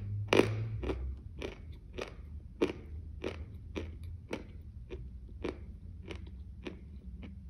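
A person chewing a mouthful of soft marshmallow snack with the mouth closed: steady chews about two a second, growing softer toward the end.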